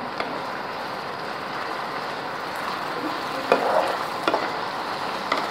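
Paneer cubes and chilli masala sizzling in a nonstick frying pan as they are stirred together, with a slotted metal spatula scraping and knocking against the pan; the sharpest knocks come about three and a half and four and a quarter seconds in.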